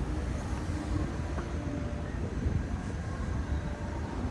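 Outdoor city ambience: a steady low rumble, with faint snatches of distant voices.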